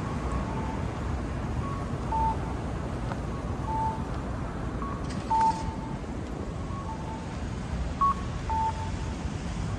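Short electronic beeps at two slightly different pitches, sounding again and again at uneven spacing, over a steady low rumble.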